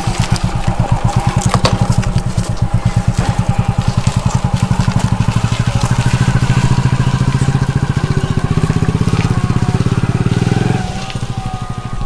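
Small single-cylinder commuter motorcycle engine running with a steady, even chugging beat. About a second before the end the sound drops away sharply as the bike pulls off.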